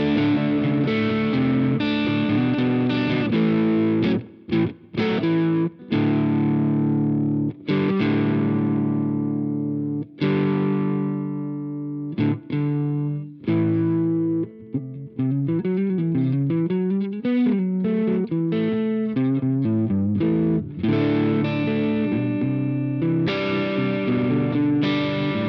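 Electric guitar played through an iSet Dumbler overdrive pedal with a mild, crunchy drive. Chords are strummed and left to ring out and die away. A run of quick single notes comes in the middle, then strummed chords return.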